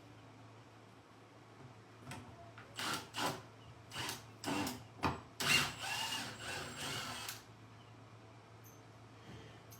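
Power drill run in about seven short bursts, then in one longer run of about two seconds.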